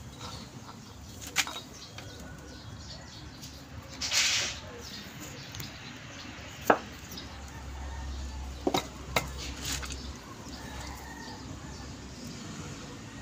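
A few sharp clicks and light knocks as a greasy steering box is lifted and turned over in the hands, with a short rushing noise about four seconds in.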